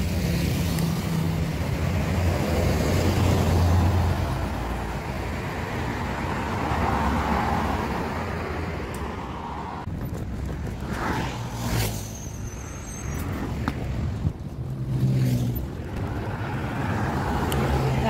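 Road traffic on a city street: vehicles driving past with tyre noise, a heavy engine's low hum loudest in the first few seconds and again briefly about fifteen seconds in.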